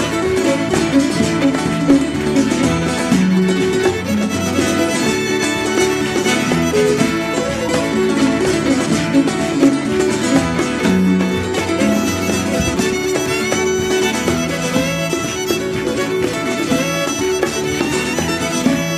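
Background music: an instrumental folk tune with a fiddle carrying the melody over guitar accompaniment.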